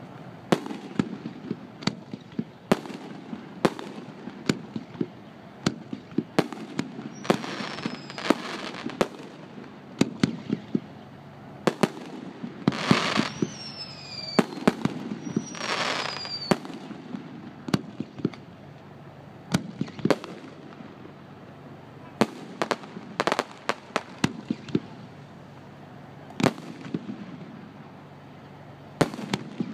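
Aerial fireworks display: dozens of sharp bangs from shells bursting at irregular intervals, often more than one a second. In the middle come three hissing whooshes of about a second each, each with a falling whistle.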